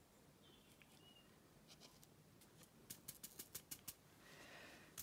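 Faint, light ticks of small square resin diamond-painting drills clicking against a plastic drill tray as it is shaken and tapped, more of them in the second half; the drills are staticky.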